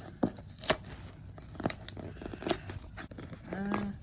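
A mail package being torn open and handled by hand: tearing and crinkling of the packaging with scattered sharp crackles.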